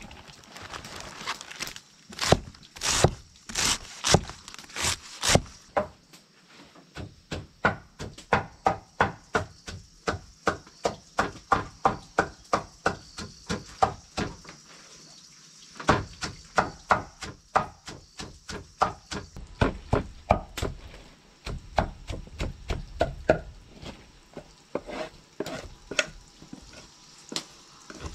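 Knife chopping on a wooden cutting board: quick, regular strokes about three a second, with a short pause about halfway.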